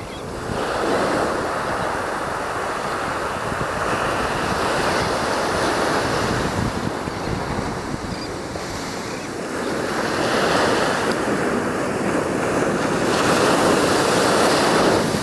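Sea surf breaking and washing in, swelling and easing about four times, with wind rumbling on the microphone.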